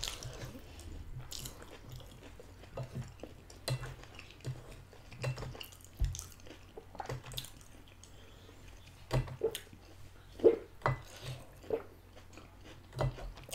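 Chewing of spaghetti in tomato sauce, close to the microphone, with scattered light clicks and taps of a wooden fork against a plate.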